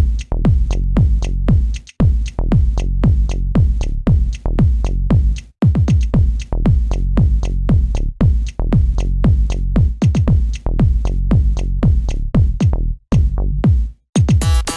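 Electronic background music with a steady beat and strong bass, made of quick, evenly spaced falling synth tones at about four a second. It drops out briefly a few times.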